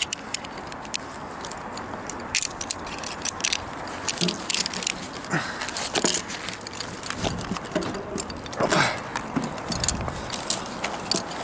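Irregular metallic clicks and clinks of climbing hardware being handled: a Vento rope descender being opened and a rope worked through it, with carabiners knocking against the metal.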